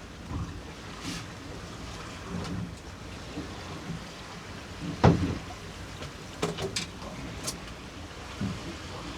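Choppy sea washing against a small boat's hull in the wind, with scattered knocks and clicks on board; the loudest, a sharp knock, comes about five seconds in.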